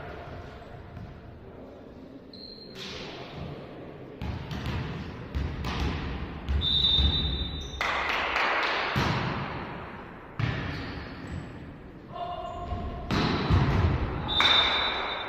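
Volleyball play in an echoing sports hall: a string of sharp hits and thuds of the ball being struck and landing, with players' short calls. Two high steady tones about a second long cut in near the middle and near the end.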